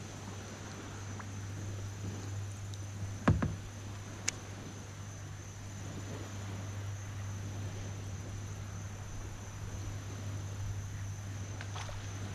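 Steady high drone of insects over a low steady hum, with one sharp knock about three seconds in and a lighter click a second later.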